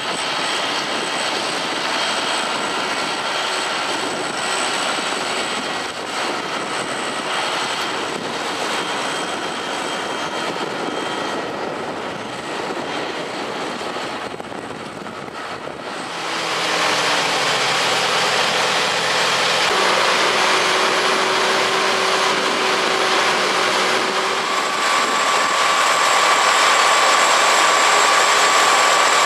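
John Deere tractor engine running as it pulls a drag-hose slurry injector across the field, fading slightly as it passes. About 16 s in this changes to a louder, steady machine run from a tractor-driven slurry pump unit, with a steady whine from about 25 s.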